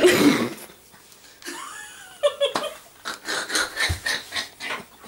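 Laughter: a pitch-gliding voice sound, then a run of short quick bursts of laughing from about three seconds in.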